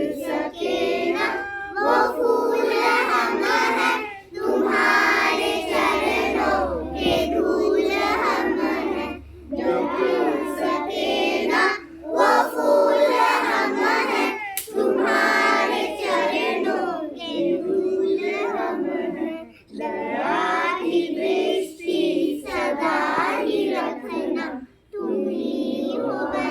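A group of schoolchildren singing together in unison, phrase after phrase with short pauses for breath between them.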